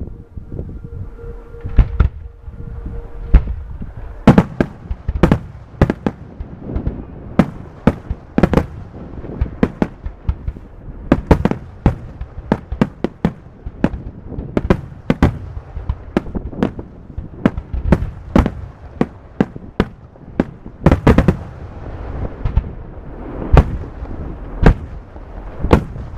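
Fireworks display: a rapid, irregular barrage of sharp bangs, several a second, over a continuous rumble of reports.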